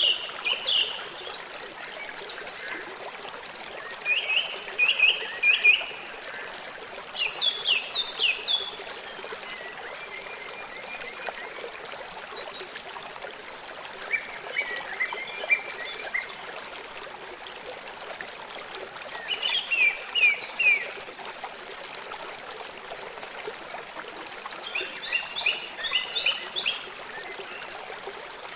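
A songbird singing short phrases of quick, repeated downward-sliding notes, one phrase every few seconds, over the steady rush of a running stream.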